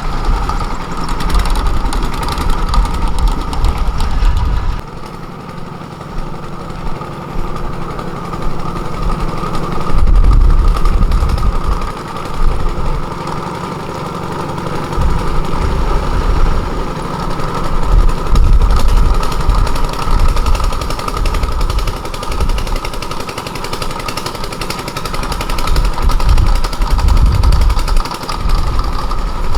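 Engine running steadily with a constant mid-pitched hum, over a heavy low rumble that swells and fades every few seconds.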